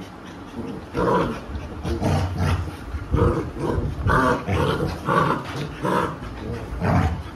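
Labrador mother and puppies play-fighting, growling and snarling in short bouts about one or two a second, starting about a second in.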